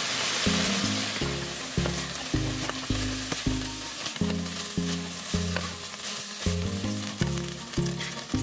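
Chicken breast cubes sizzling in hot olive oil in a pan, with a wooden spatula scraping and clicking as it stirs them. Background music with a steady bass beat plays underneath.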